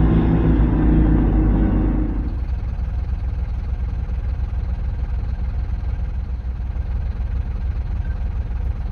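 Mercedes Vario truck's diesel engine running under way on a gravel track, a loud drone that cuts off about two seconds in, giving way to a quieter, steady low rumble.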